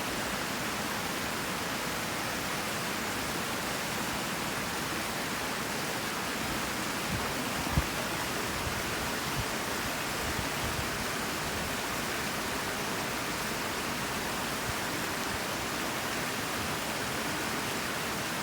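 Toccoa Creek's water rushing steadily over rocks, an even, unbroken hiss. A brief low thump about eight seconds in.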